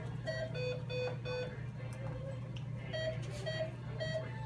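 Short electronic beeps from a veterinary patient monitor, repeating every half second or so. Three of them come at a lower pitch about a second in, and there is a pause in the middle. A steady low hum runs underneath.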